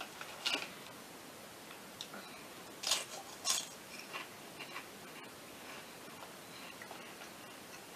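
A potato chip bag crinkling and chips being crunched, in a few short crackly bursts with faint ticks between.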